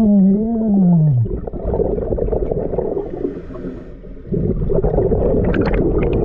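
Underwater sound of a scuba diver: a muffled wordless hum through the regulator, sliding down in pitch over the first second, then two long gurgling rushes of exhaled bubbles from the regulator, the second starting about four seconds in.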